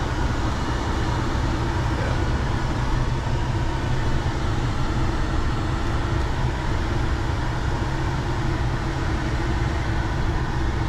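Pickup truck driving at a steady speed, heard from inside the cab: a constant low engine and road rumble.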